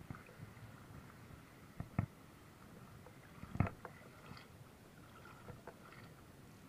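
Faint clicks and knocks from a spinning rod and reel being handled, with two louder knocks about two seconds and three and a half seconds in, over a faint steady background hiss.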